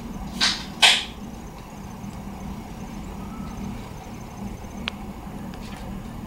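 Steady city traffic noise with a low hum, broken less than a second in by two short, loud hissing bursts about half a second apart.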